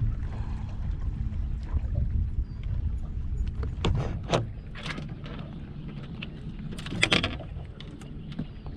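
Fishing boat on the water: a steady low rumble with several sharp knocks and clatters, the loudest a short cluster about seven seconds in.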